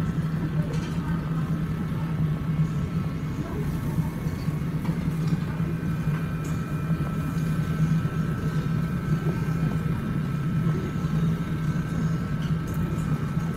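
Steady low mechanical hum with a fainter high whine held above it.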